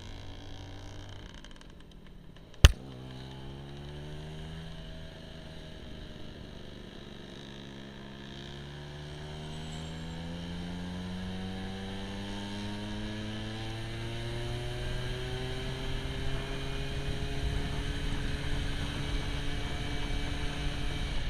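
Scooter engine under way, its pitch rising and falling several times as it accelerates through the gears and eases off, growing louder toward the end. A single sharp click about three seconds in is the loudest sound.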